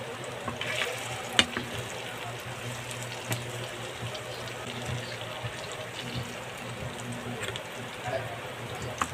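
Eggplant omelette patties frying in shallow cooking oil in a metal pan, a steady sizzle, with a few sharp clicks of a metal fork against the pan, the loudest about a second and a half in.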